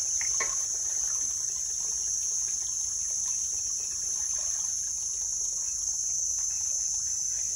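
Cicadas calling in one steady, high-pitched drone that does not break, lingering after rain.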